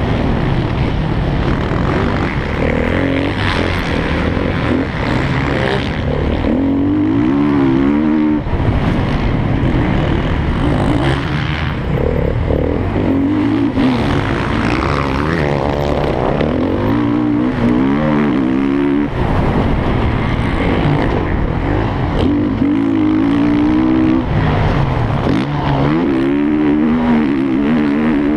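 Motocross bike engine heard from on board, revving hard under racing throttle. The pitch climbs again and again and drops off sharply every few seconds as the rider shifts gear or shuts the throttle for corners and jumps.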